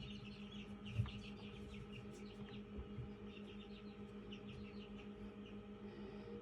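Newly hatched chick peeping: short, high chirps in quick runs over a steady low hum, with a soft knock about a second in.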